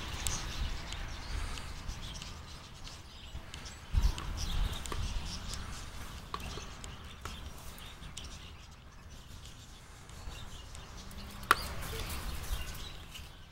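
Faint bird chirps over a low, uneven rumble, with a few short knocks. The sharpest knock comes about eleven and a half seconds in.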